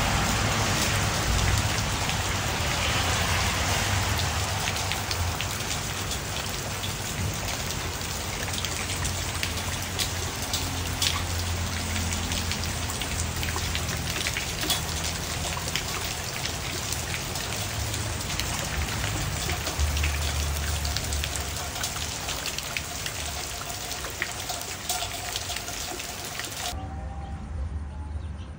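Steady rain falling on garden trees and foliage: a continuous hiss with many separate drop hits. It cuts off suddenly near the end.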